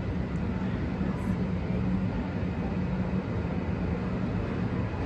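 Boeing 737 jet engines idling as the airliner taxis: a steady rumble with a steady low hum.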